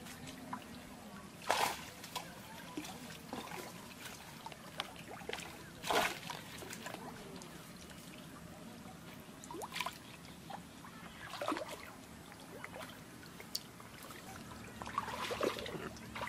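Water trickling and dripping from a freshly lifted mesh lift net, with a few sharp splashes and slaps scattered through as small fish flap in the wet net.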